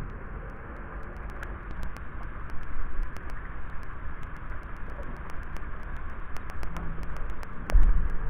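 A pickup truck slowly pulling a boat trailer with a raised boat up a gravel shore: a steady rushing rumble with scattered crunches and clicks, and a heavy thump near the end.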